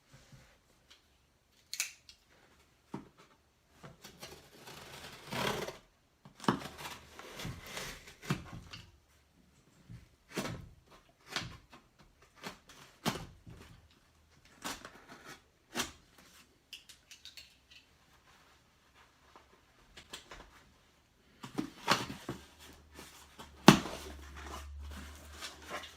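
A mailed package being opened by hand: scattered clicks, knocks and short rustling and tearing noises from the packaging, with quiet gaps between them.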